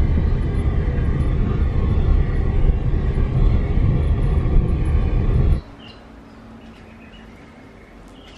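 Loud, low wind rumble on the microphone with road noise from a moving car. It cuts off abruptly about five and a half seconds in, leaving a faint steady background.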